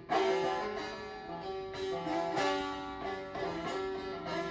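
Bağlama (saz), the Turkish long-necked lute, playing an instrumental folk melody: plucked notes over steady ringing open-string drones.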